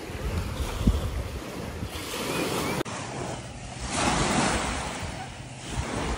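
Small waves washing onto a sandy shore, with wind rumbling on the microphone, louder about four seconds in.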